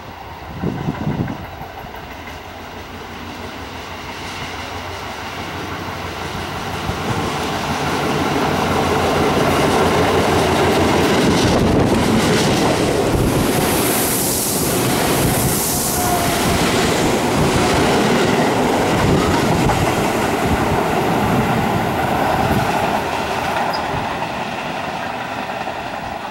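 Tobu 8000 series electric train approaching and passing close by on a curve, its wheels clacking over the rail joints. The sound swells over several seconds, holds loud while the cars go by with a high screech of wheels on the curve in the middle, then eases off.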